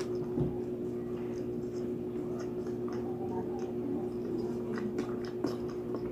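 Close-up chewing of roasted lechon pig's head, small wet mouth clicks and soft crackles, over a steady hum.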